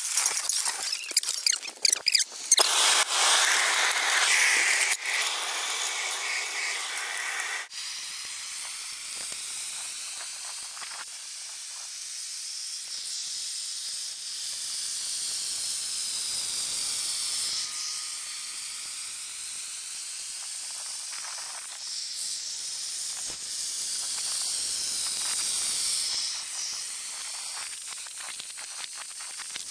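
Steady hiss of a propane-fired ice resurfacer's burner melting the rink surface. It is loudest and fullest in the first few seconds, with a few clicks at the very start, and becomes a thinner, higher hiss after a sudden change about eight seconds in.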